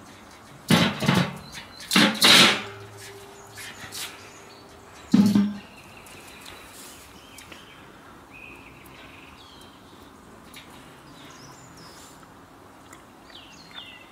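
Metal lid of a small black smoker being taken off: two loud clanks and scrapes in the first few seconds, the second leaving a brief ringing, then a thud about five seconds in. Faint chirps follow in the background.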